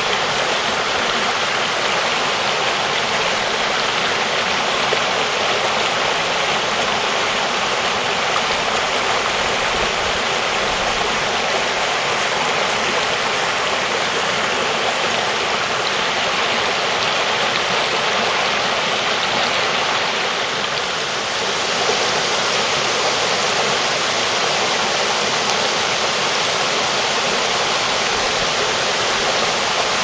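Rain-swollen woodland stream rushing over rocks and small cascades: a steady, full rush of water high after several days of rain.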